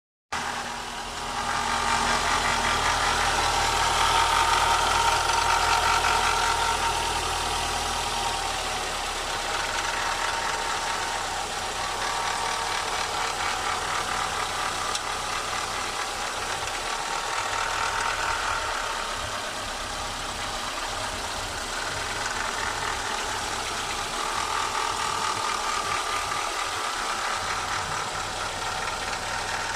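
Renault Logan engine running at idle with an extraneous whine that swells and fades; the noise comes from around a roller (belt tensioner or idler pulley) that is new and original and has run about 3,000 km.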